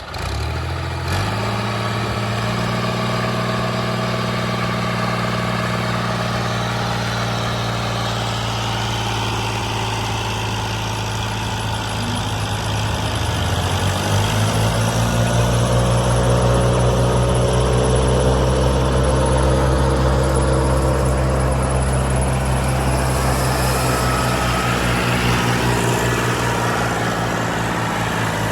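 Old combine harvester's diesel engine running steadily. About halfway through it dips briefly, then speeds up and gets louder and holds there.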